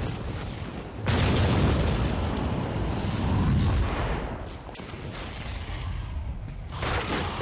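A deep boom about a second in, rumbling on and fading over about three seconds, then a second short burst of noise near the end.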